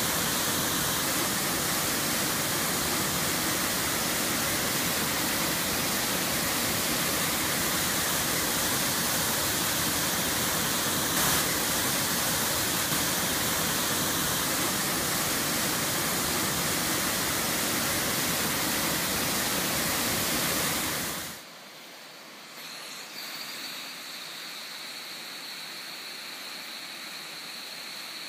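Steady roar of a jet of water gushing from a concrete tunnel outlet into a channel. About three-quarters of the way through it cuts off suddenly, leaving a much quieter hiss with a faint, thin, steady high whine.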